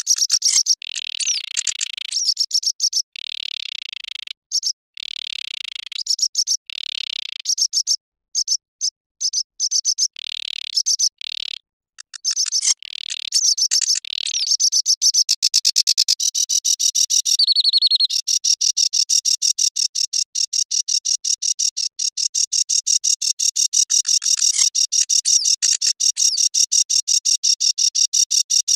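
Sedge warbler singing a high, fast song. For the first two thirds it is varied phrases broken by short pauses. From about eighteen seconds in it becomes one unbroken run of rapidly repeated notes.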